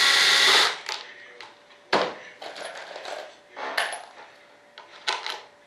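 Cordless drill running briefly on a screw in the hatch mould's flange, stopping under a second in. It is followed by several small metallic clinks and rattles as screws and hardware are handled.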